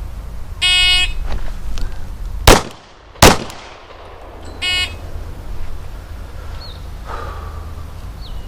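Electronic shot timer beeps, and about a second and a half later a Glock 19 9mm pistol fires a double tap, two shots about three-quarters of a second apart. A second, shorter timer beep follows about a second and a half after the shots.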